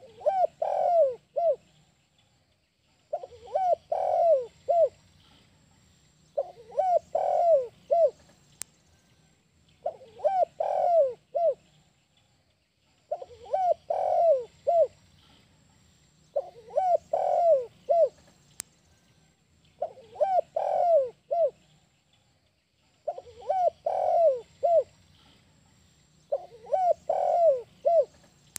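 Spotted dove (tekukur) cooing its song in the 'kuk 1' style, a phrase of about four low coos repeated steadily, nine phrases spaced roughly three seconds apart.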